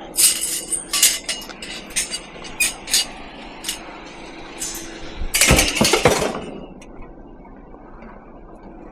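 Pieces of scrap metal clinking and clattering as they are handled, with a louder clatter at about five and a half seconds, then only faint steady background noise.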